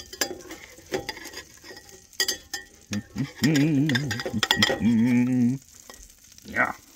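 Metal spatula clicking and scraping against a ceramic bowl as a slice of bread is turned in egg batter, over the faint sizzle of butter in a frying pan. About halfway through, a low, wavering hum from a man's voice runs for about two seconds.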